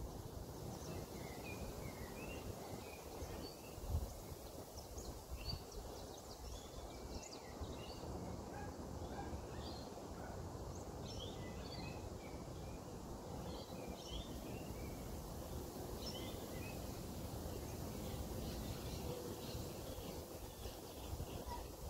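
Small birds chirping and twittering in short, scattered calls over a low, steady background rumble, with a soft thump about four seconds in.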